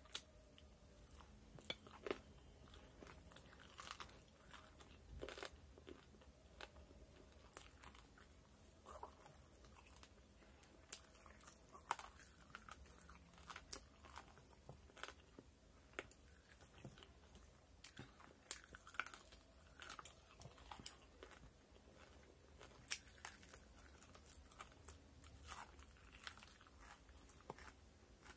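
A person chewing crispy fried chicken pakoda, with faint chewing between irregular sharp crunches and mouth clicks.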